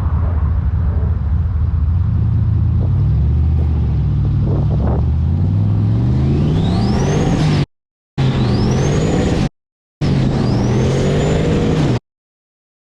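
Turbocharged LS1 V8 running steadily, then accelerating: the engine note climbs and a high whistle rises with it. This happens in three short pulls, each cut off abruptly.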